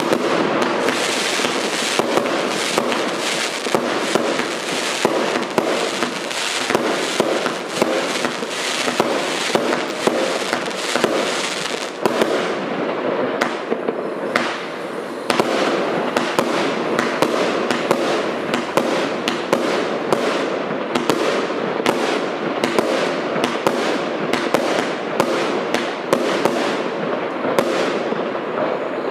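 A 131-shot fireworks cake with 30 and 25 mm tubes firing in quick succession: a steady string of sharp shots, about two a second and coming faster in the second half, over a constant hiss and crackle from the bursts.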